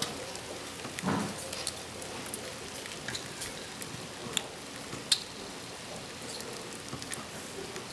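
Charcoal fire in an irori hearth, with skewered char grilling around it, crackling: a steady hiss with scattered sharp pops, and one short, low, muffled sound about a second in.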